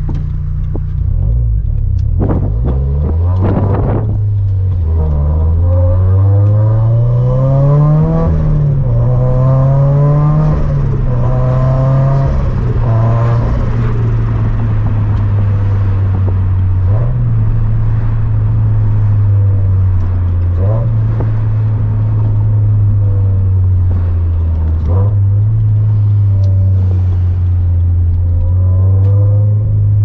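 Flat-four boxer engine and exhaust of a manual Scion FR-S-type sports car, heard from inside the cabin, pulling through the gears. The engine note climbs and drops back at each upshift, then holds steady between occasional shifts, with a few sharp cracks about two to four seconds in.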